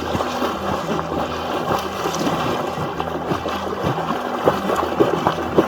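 Lake water splashing and sloshing continuously as a swimmer moves through it, with a few sharper splashes near the end, over background music with a low bass line.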